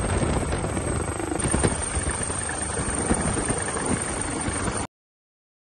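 Helicopter rotor and engine noise, steady and rumbling, heard from aboard, cutting off abruptly near the end.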